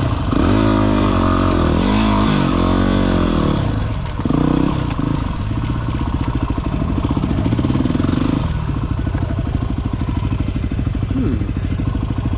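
Dirt bike engine being revved up and down in several blips, dipping briefly about four seconds in, then picking up again and settling into a steady, even running beat for the last few seconds.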